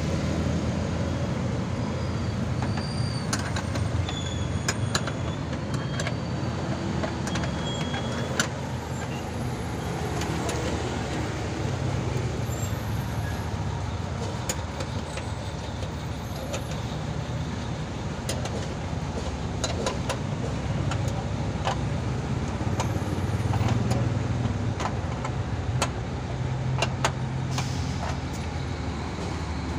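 Steady low rumble of road traffic, with scattered clicks and light knocks.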